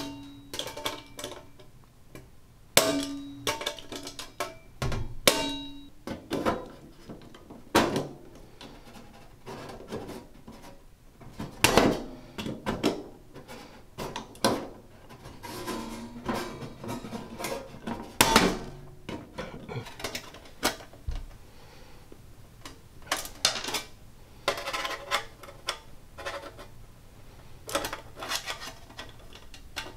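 Hand-squeezed punch-and-die nibbler biting through 22-gauge steel sheet: a sharp metallic clack at each squeeze, coming at uneven gaps of about one to two seconds, some with a brief ring from the sheet.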